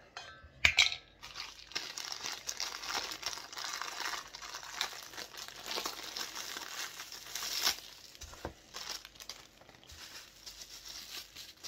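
Plastic packaging crinkling and tearing as a Funko Soda vinyl figure is pulled out of its black plastic bag and bubble wrap, with a couple of sharp clicks just under a second in. The crinkling is dense through the middle and thins out over the last few seconds.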